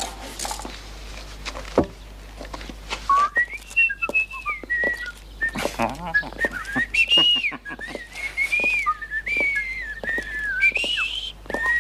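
A person whistling a wandering tune, starting about three seconds in, over scattered clicks and a single knock shortly before it.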